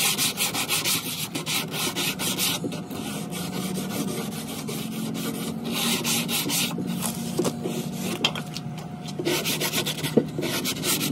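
Sanding sponge rubbed by hand across a plywood panel in quick back-and-forth strokes, coming in spells of faster scrubbing.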